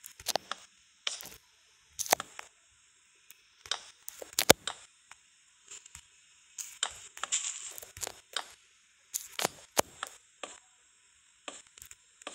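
Small pieces of wood being worked by hand: a long run of irregular sharp cracks and taps, with a short stretch of scraping about seven seconds in.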